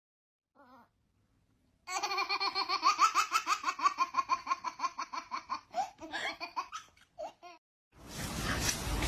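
A person laughing in a long run of rapid, high-pitched giggles that rise and then fall in pitch, starting about two seconds in and lasting about five seconds.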